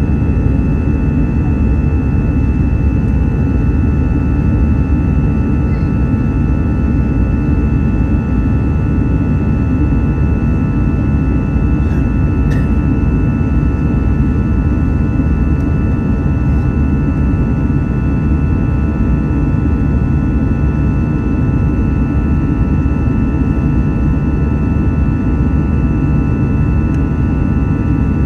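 Airbus A320-200 jet engines running steadily: a constant low rumble with several steady whining tones above it, unchanging throughout.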